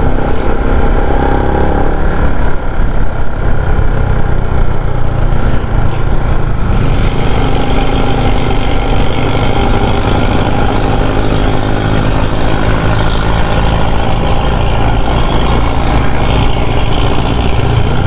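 Motorcycle engine running steadily while riding, a low drone under a rushing noise that gets louder about seven seconds in.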